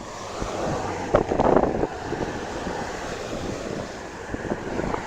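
Wind buffeting the microphone in uneven gusts, with a stronger gust a little over a second in.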